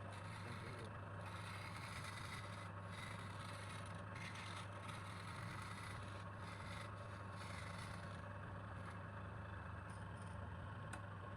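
Electric wood lathe running with a steady hum while a turning tool scrapes the spinning wood, the scraping briefly easing off now and then.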